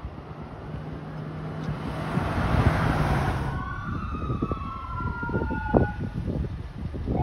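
A passing vehicle's tyre and engine noise swells and fades in the first half. Then a fire engine's siren wails, its pitch sliding up and down, with wind buffeting the microphone.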